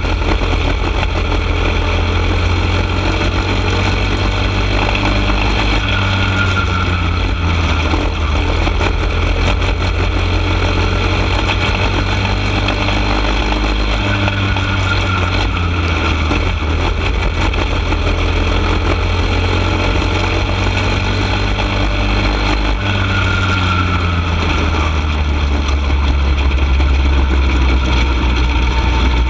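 Go-kart engine running at racing speed, heard onboard over a heavy low rumble. Its pitch rises and falls about every nine seconds, lap after lap.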